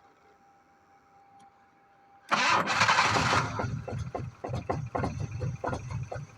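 1986 Jaguar XJ6 engine being cranked on the starter for a no-start: a loud burst about two seconds in, then uneven, stumbling chugs that do not settle into a steady run.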